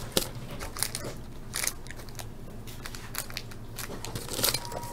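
Foil baseball card pack wrapper crinkling and crackling in gloved hands as the pack is opened and the cards slid out, in scattered short crackles, the loudest about four and a half seconds in.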